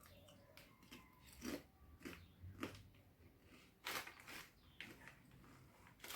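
A person biting and chewing sea salt crisps: a few short, quiet crunches spread over several seconds, the loudest about four seconds in.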